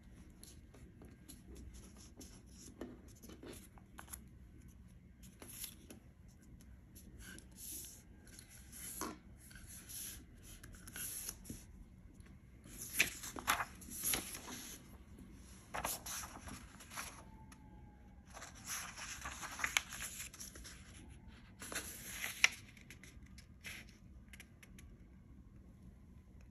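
Sheets of craft paper handled and folded by hand: rustling, sliding and crisp creasing in irregular spurts, louder and busier in the second half, with a few sharper crackles.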